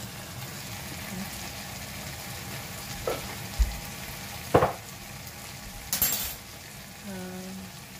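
Seasoned spice mix of garlic, shallots, chilli, tomato and galangal sizzling steadily in hot oil in a pan while it is stirred. A utensil knocks against the pan a few times, loudest about halfway through, and scrapes once about two seconds later.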